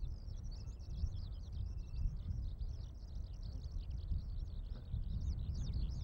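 Eurasian skylark singing: a continuous stream of rapid, high warbling and trilling notes without pause, over a steady low rumble.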